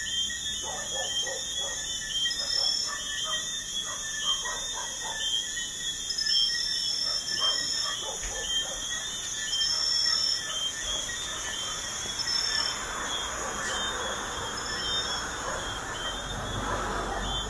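Crickets chirping in a dense, steady, pulsing chorus at night, with a higher insect trill coming in drawn-out bursts every couple of seconds. Traffic noise from a busy highway swells in the last few seconds as a vehicle passes, with a low rumble.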